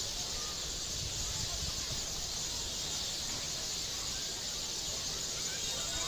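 Steady high-pitched hiss of outdoor nature ambience, like insects or the hissing begging of nestlings, with a few faint short bird chirps.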